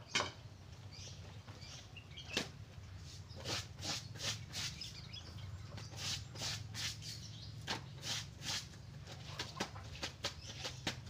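Laundry being washed by hand in a bucket of water: irregular splashes, swishes and slaps of wet cloth being rubbed and wrung, several times a second in places, over a steady low hum.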